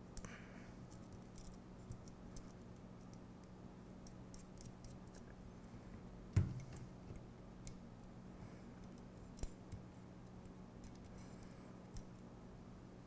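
Faint, scattered clicks of small metal hardware as M3 lock nuts are threaded by hand onto bolts through an aluminium C-channel, with one louder knock about six and a half seconds in.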